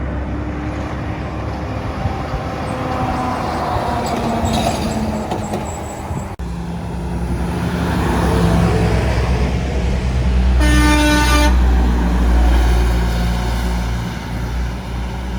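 Trucks passing on a highway, the engine and tyre noise swelling as one passes close, with a single horn blast of about a second midway through.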